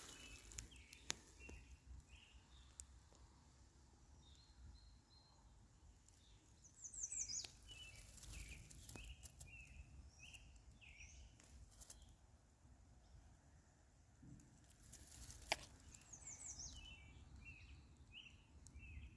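Faint birdsong: short chirps repeated again and again, with a quick run of high falling notes about a third of the way in and again near the end. A single sharp click about three-quarters of the way through.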